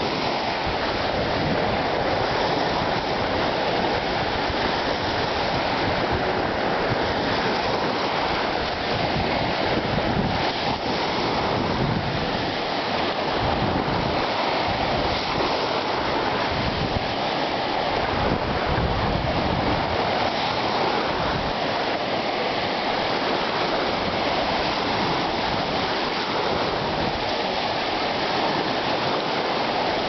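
Small surf breaking and washing up a sandy beach in the shallows, a steady rush of water, with wind gusting on the microphone.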